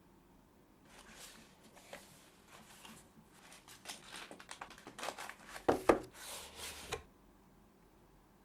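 Hands unpacking a keyboard box: packaging rustling and scraping with small clicks, and two sharp knocks just before the six-second mark as parts are set down or the box is opened. The handling stops about a second before the end.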